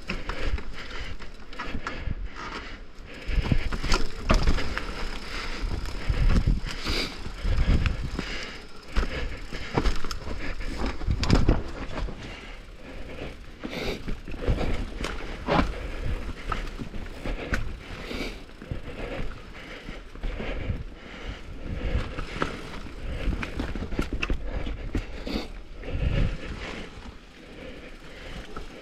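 Downhill mountain bike rolling over a rough trail: tyres on dirt and rock with a constant clatter of irregular knocks and rattles from the bike over bumps, and a low rumble that swells at the rougher sections.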